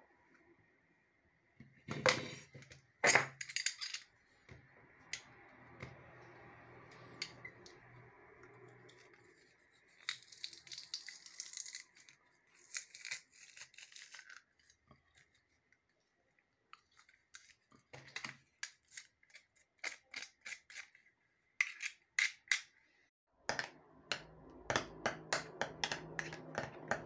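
Kitchen utensil sounds: a metal spoon tapping and scraping a glass jar and a china cup as mayonnaise is scooped out, a metal garlic press squeezing garlic cloves with a scraping hiss, and near the end a teaspoon stirring in the china cup with quick clinks, about four a second.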